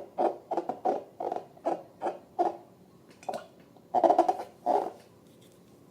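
Slime and balloons being squeezed and handled: short squishy, squeaky bursts, several a second, pausing briefly near the middle and stopping about five seconds in.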